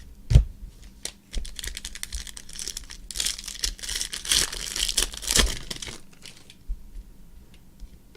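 A trading-card pack wrapper being torn open and crinkled by hand, with a knock about half a second in and the crinkling loudest in the middle before it dies away.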